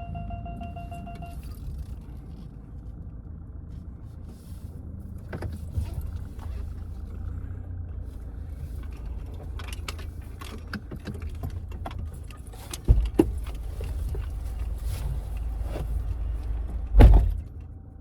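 Low steady rumble of a Mahindra Scorpio-N SUV, with scattered clicks and rattles and two heavy thumps, one about thirteen seconds in and a louder one near the end.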